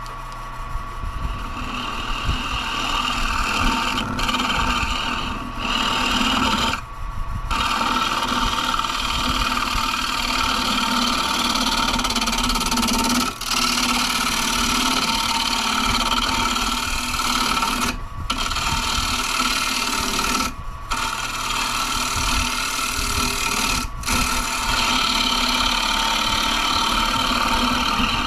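Carbide turning tool scraping into a spinning maple bowl blank on a wood lathe, truing its uneven backside. It is a steady rasping hiss over the lathe motor's hum, broken by several brief gaps.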